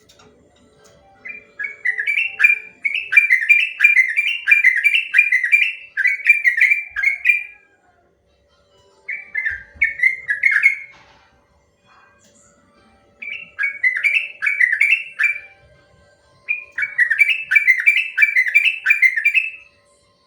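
Yellow-vented bulbul (trucuk) singing its long, rolling trill ('ropel panjang'): four bubbly phrases of quick, repeated down-slurred notes with short pauses between them. A faint steady hum lies underneath.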